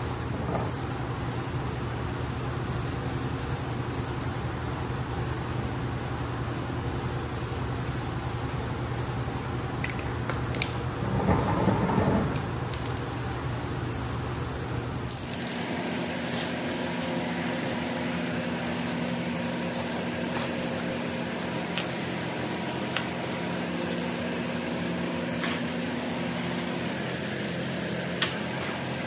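Steady hum of a machine shop's fans, with a louder rushing noise for about a second near the middle. After that, aerosol spray paint hisses in short bursts onto the repaired aluminum pump housing, with a few light clicks from the can.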